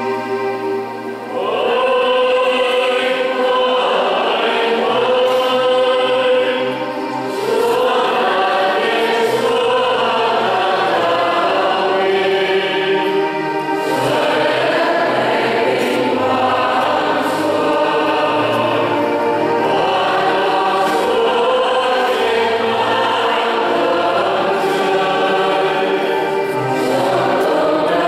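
Church choir singing a slow hymn over steady held instrumental notes.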